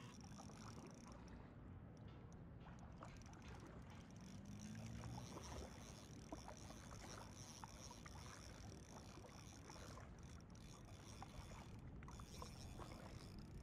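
Faint water lapping against a plastic sit-on-top kayak hull, with scattered small ticks over a low steady rumble.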